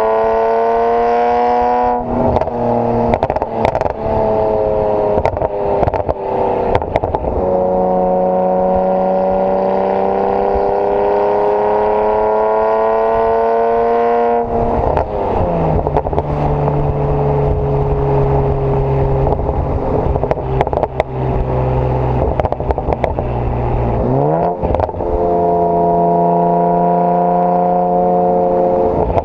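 BMW 335i's twin-turbo 3.0-litre straight-six running through a decatted AC Schnitzer quad exhaust, pulling steadily with its pitch climbing slowly, dropping sharply twice as it shifts up and rising again near the end. Scattered sharp crackles and pops between the pulls.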